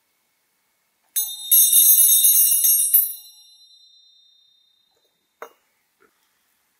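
Small brass hand bell rung briskly for about two seconds, its clapper striking many times, the high ringing dying away over the next second or so. A single short knock follows about a second later.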